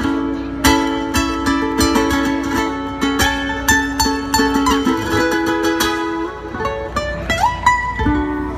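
Two ukuleles playing an instrumental duet through the stage PA, a quick plucked melody over strummed chords, with one note bent upward near the end.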